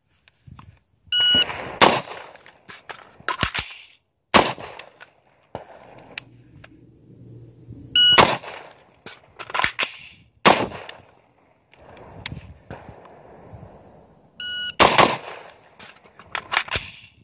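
A shot timer beeps three times, and after each beep an AR-15 rifle fires, followed by the clicks and clatter of a magazine being dropped and a fresh one seated, then another shot: reload drills run on the timer.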